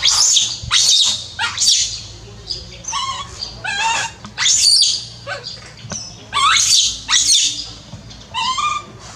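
A baby macaque crying in distress: a string of shrill, high cries, each rising then falling, coming singly or in pairs about a second apart.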